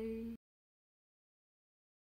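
A held note of music, a steady pitch with strong overtones, cuts off abruptly in the first half-second and gives way to dead silence.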